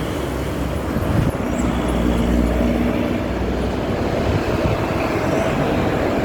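Bus in a moving convoy: a steady engine rumble and road noise with a faint hum.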